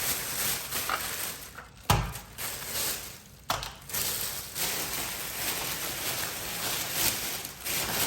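Rustling and handling noises from kitchen items, with two sharp knocks, about two and three and a half seconds in.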